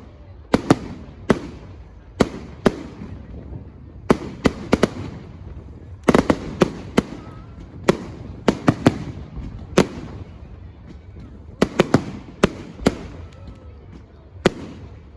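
Fireworks bursting: a rapid, irregular string of sharp bangs, often two to four close together, each with a short echoing tail.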